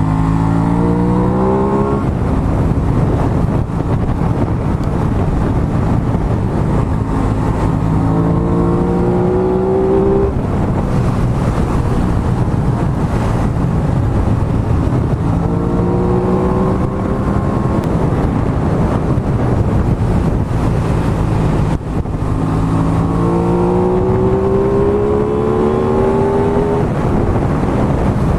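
Aprilia Tuono 660's parallel-twin engine accelerating hard four times, each pull a rising note up the rev range, over a steady rush of wind and road noise.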